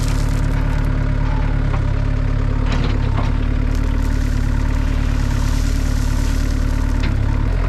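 Diesel engine of heavy equipment running steadily under light load, with a few sharp knocks or clanks about three seconds in and again near the end, where the engine note drops.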